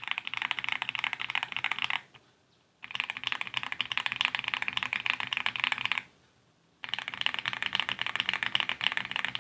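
Fast typing on a plastic 60% mechanical keyboard (Apollo61 Lite / Cidoo QK61) fitted with stock Akko Jelly Black linear switches, a dense stream of key clacks. It comes in three runs, stopping briefly about two seconds in and again about six seconds in.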